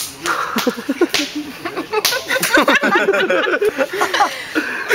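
A few sharp smacks in the first two seconds, then a busy stretch of people's voices laughing and exclaiming without clear words.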